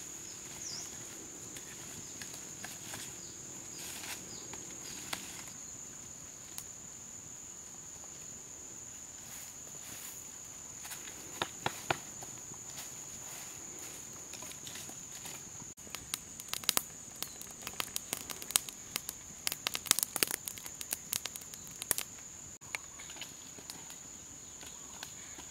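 Steady high-pitched insect drone, with sharp crackles and clicks scattered through it that come thick and fast for a few seconds past the middle.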